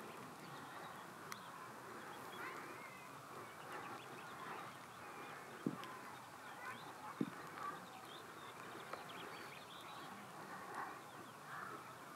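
Faint open-air ambience with distant birds calling, broken by two short low thumps a second and a half apart midway through.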